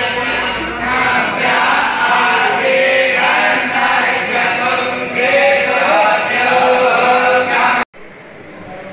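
A group of men chanting a Hindu mantra together, many voices in unison holding drawn-out pitches. It cuts off suddenly about a second before the end.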